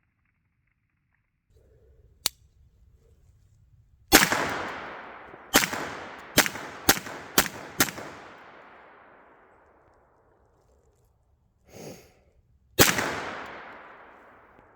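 Sig Sauer P226 pistol firing seven shots, each echoing away over a couple of seconds. A single shot comes first, then a quick string of five about half a second apart, and after a pause of about five seconds a last shot.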